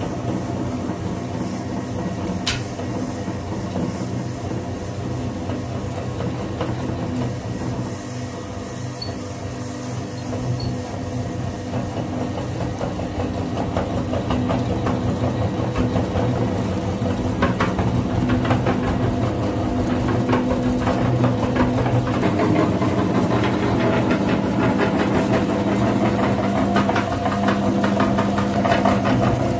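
Electric meat grinder running steadily with a motor hum while its auger crushes sticks of chalk, a dense crunching and crackling that grows louder in the second half. A single sharp click sounds about two and a half seconds in.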